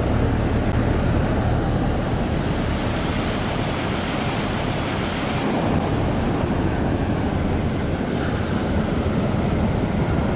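Ocean surf breaking and washing up onto a sandy beach, a steady rush of waves.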